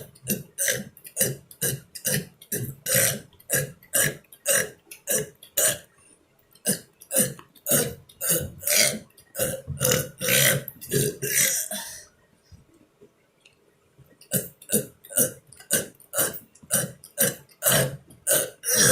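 A man burping over and over in quick succession, short burps at about two or three a second, with a pause of about two seconds some two-thirds of the way through before the string of burps starts again.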